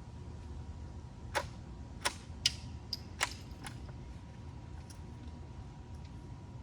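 Bolt of a Savage B22 FV-SR bolt-action .22 rifle being worked after a shot: a quick run of about six sharp metallic clicks over two seconds, starting about a second and a half in.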